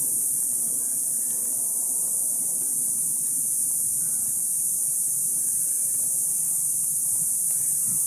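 Cicadas in a mesquite tree singing together as a steady, unbroken, high-pitched buzz.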